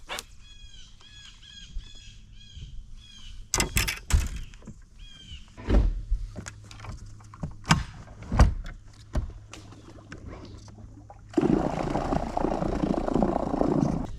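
A bird calling in a quick series of short chirps, then several sharp knocks, under a steady low hum; near the end a loud rushing noise starts suddenly and runs on.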